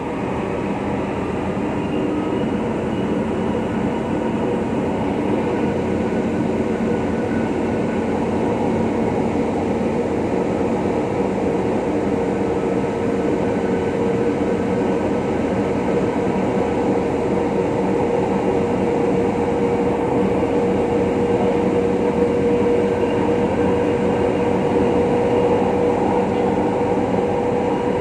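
Metro train running on an elevated track, heard from inside the car: a steady rumble of wheels on rail with a constant motor hum. It grows a little louder over the first few seconds as the train pulls out of the station and picks up speed.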